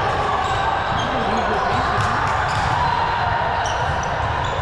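Gym ambience during a recreational ball match: a steady hubbub of voices in a large hall, with scattered ball impacts and short high squeaks.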